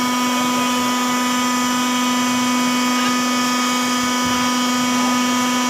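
Heavy machinery running with a steady whine that holds one pitch throughout.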